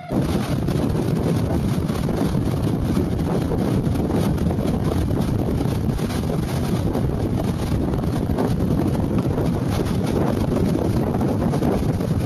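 Strong wind rushing and buffeting the microphone, steady and loud, with waves breaking on rocks mixed in.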